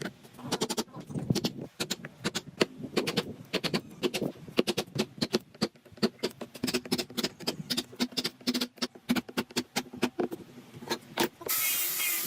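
Rapid, irregular tapping and knocking, several sharp hits a second, during woodworking. Near the end a small power tool starts and runs with a steady whine.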